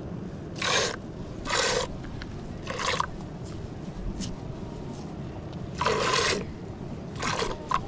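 Five separate scraping strokes, each about half a second long and spaced unevenly, over a steady low background rumble.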